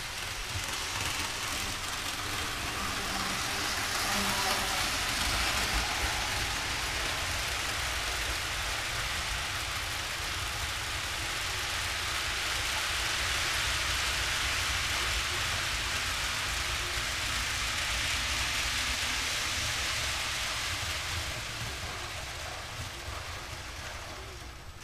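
A model train headed by two SD60M model diesel locomotives running on the layout's track: a steady rolling hiss of wheels and motors. It swells slightly and then fades near the end.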